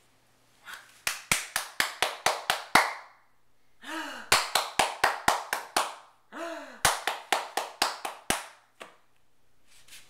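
Hands clapping quickly, in three bursts of about seven or eight claps each at roughly four to five claps a second, with a short voice sound just before the second and third bursts.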